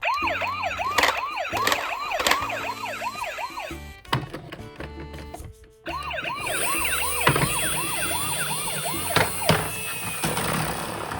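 Toy miniature ambulance's electronic siren sounding a fast rising-and-falling yelp, about three sweeps a second, with a few sharp knocks from the toy. The siren breaks off for about two seconds midway, then starts again with a high hiss under it.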